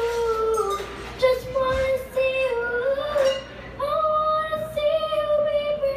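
A young girl singing a pop song into a handheld microphone, sliding between notes and holding a long, steady note near the end.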